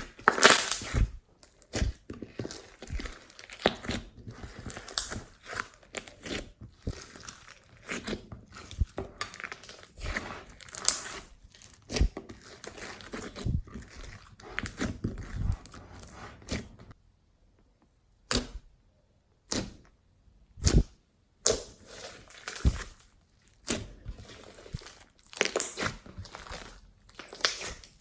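Slime being squished and stretched by hand, a dense run of sticky crackling and popping, then a brief pause and separate sharp pops.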